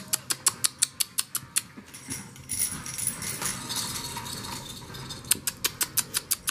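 French Bulldog puppies playing with toys: a run of quick, even clicks, about six a second, then a softer rustle, then another run of clicks near the end.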